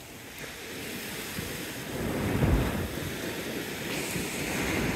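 Surf breaking on a beach, with wind buffeting the microphone. The noise swells to a loud low surge about halfway through and rises again near the end.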